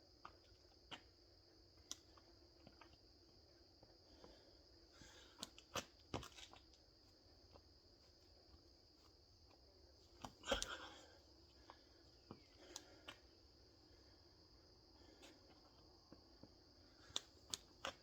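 Mostly quiet, with a steady high-pitched hum and scattered knocks and thumps from a burpee and kettlebell-row workout; the loudest thump comes about ten and a half seconds in.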